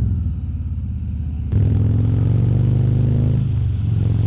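Harley-Davidson Road King Special's V-twin engine running at highway speed. About a second and a half in, the throttle opens and the engine note gets clearly louder. It eases back a little before the end.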